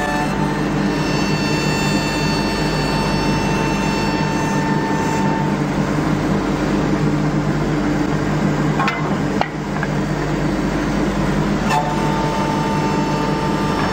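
Woodworking machinery running steadily, a constant motor hum and whine with several held tones. A couple of sharp knocks come about nine seconds in.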